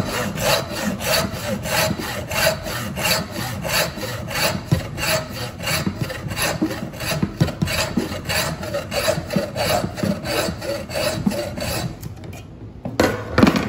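Hacksaw cutting through deer skull bone in quick, even back-and-forth strokes, about three a second, trimming a small piece off the skull plate. The sawing stops about twelve seconds in, and a knock follows near the end.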